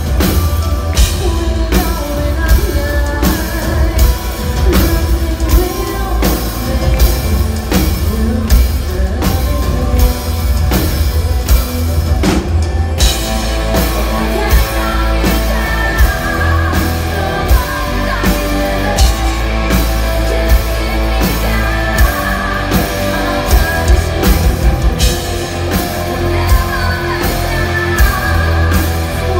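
Symphonic metal band playing live: a drum kit driving a steady beat under distorted guitars and keyboards, with a woman singing lead over the band.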